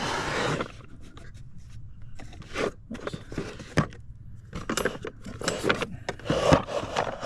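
Old hand tools being handled in a wooden tool chest: a scrape in the first second and again about six seconds in, with scattered clinks and knocks of metal and wood between.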